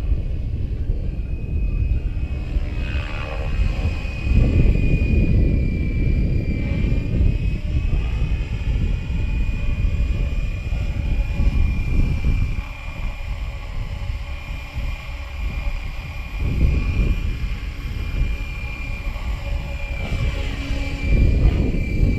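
Electric RC helicopter (Gaui X5) flying: a steady high-pitched whine from its motor and rotor head, with the sound swelling and bending in pitch as it passes close a few seconds in and again near the end. Heavy wind buffets the microphone underneath.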